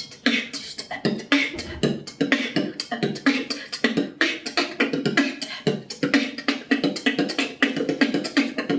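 Beatboxing: a fast, continuous vocal drum pattern of sharp kick, snare and hi-hat-like strokes built from three basic sounds.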